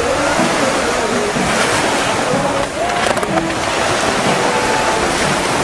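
Ocean surf washing on the shore, a steady rushing noise, with wind buffeting the microphone.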